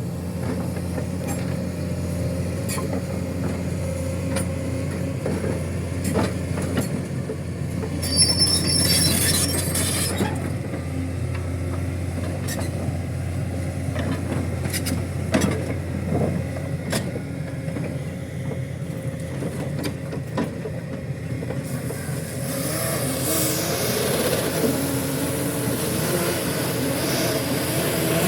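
A heavy machine's engine running steadily, with clanks and knocks of metal and squeals that come and go, one high squeal about a third of the way in and wavering squeals near the end.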